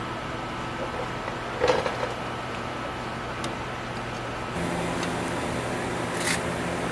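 A few clicks and knocks of parts being handled while a headlight halo ring is fitted into the light, the loudest about a second and a half in and another near the end, over a steady hum that gets a little louder about two-thirds of the way through.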